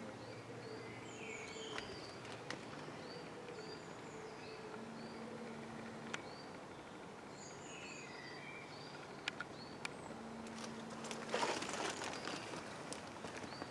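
Small birds chirping outdoors, with short high calls repeated many times and a few quick falling twitters, over steady background noise. A brief noisy rustle comes near the end.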